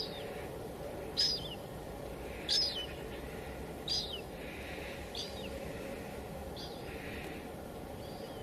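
Steady hiss of light drizzle, with a bird calling over it: a short, high, falling call repeated about every second and a half, seven times, growing fainter.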